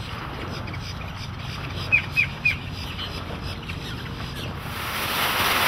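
Birds chirping, with three sharp chirps in quick succession about two seconds in, over the low steady hum of the boat's Mercury 200 HP outboard running out on the water. Near the end a broad rushing noise of wind and water rises.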